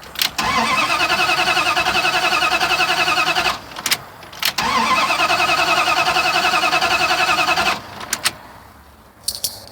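Truck engine cranking on the starter in two bursts of about three seconds each without catching, with short clicks between and after. There is no spark: the test light on the coil supply goes off while it cranks.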